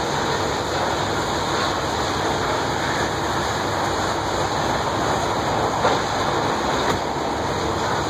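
Long-reach demolition excavator running steadily as it tears into a brick building, with a couple of small knocks of debris about six and seven seconds in.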